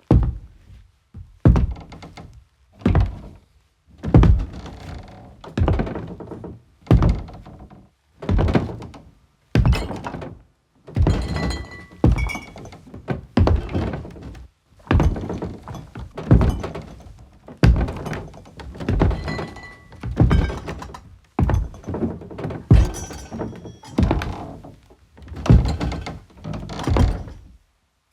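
Hard-soled soldier's shoes stepping on a hollow, bassy wooden foley floor, a slow, even walk of heavy footsteps at about one step every 0.7 s. This is foley for a soldier crossing an old wooden porch.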